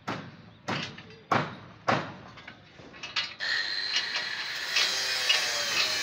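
Hammer blows: four ringing strikes about two-thirds of a second apart, then a few lighter taps. About halfway through, a steady high-pitched buzz with small clicks takes over.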